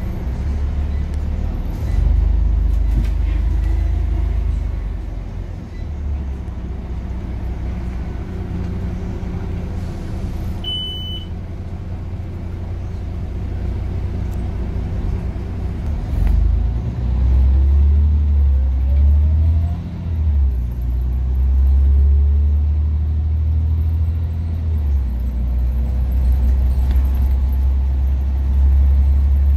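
Scania OmniCity bus's drivetrain heard from inside the saloon: a heavy low rumble of engine and road, with the ZF gearbox whine rising in pitch as the bus gathers speed about two-thirds of the way through. A short high electronic beep sounds once about eleven seconds in.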